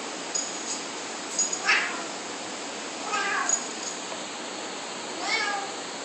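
Tabby cat meowing three times, short whining calls a second or two apart, wanting to be let back inside.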